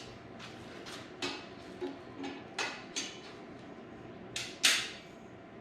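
Metal tubes and pins of a pitch-back frame being handled and fitted together: several separate light metal clicks and clanks, the loudest near the end.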